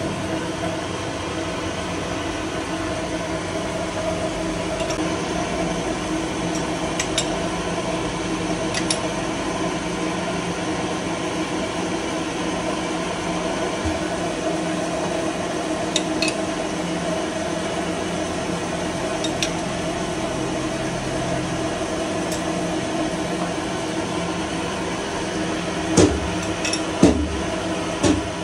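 Metal lathe running with a steady hum, with a few light metallic clinks and two louder knocks near the end.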